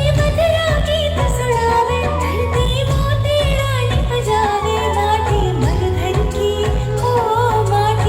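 An Indian song: a singer's voice with wavering, ornamented lines over a steady beat and bass.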